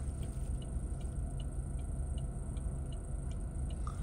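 A car's turn-signal indicator ticking steadily, about two or three ticks a second, over the low hum of the car idling at a stop.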